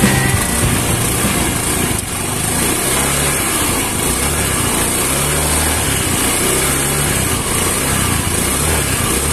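Honda Beat scooter's single-cylinder engine running steadily, driving the rear wheel through the CVT and final-drive gearbox with the wheel spinning free on the centre stand. This is a test run after a new A10 gear was fitted in the gearbox, which the mechanic says has cured its harsh noise.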